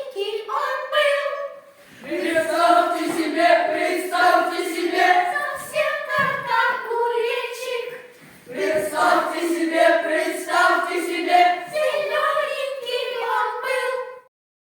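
A group of voices singing a song in phrases of held notes, with short breaks between phrases; the singing cuts off suddenly near the end.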